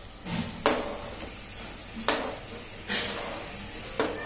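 Steel spoon knocking and scraping on a plastic chopping board as thin potato slices are pushed off into a pot of frying onions and fenugreek leaves: three sharp taps about a second and a half apart, with a short sizzle as slices land in the hot oil.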